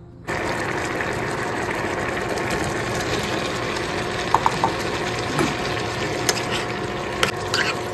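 Pumpkin strips and smoked pork cooking in a pan with a steady sizzle, which starts suddenly just after the opening. A metal ladle clicks against the pan a few times in the second half.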